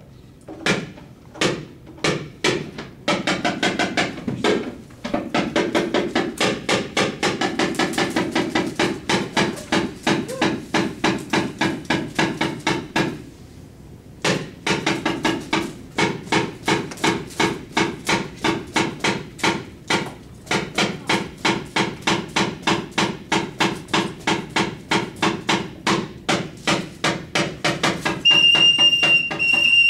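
Rapid, steady knocking from the puppeteer's percussion during a shadow-puppet fight scene, about four or five strikes a second. It pauses briefly about halfway and then resumes.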